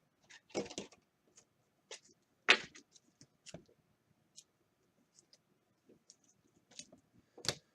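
Trading cards being handled: scattered light clicks and short scrapes as cards are flipped and slid against each other, the sharpest about two and a half seconds in.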